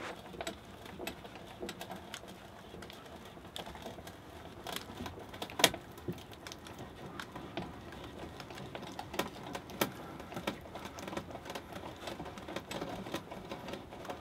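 Hand-cranked drill boring into a log: a dense, irregular run of small clicks and rattles from its gears and bit, with one sharp, louder knock about five and a half seconds in.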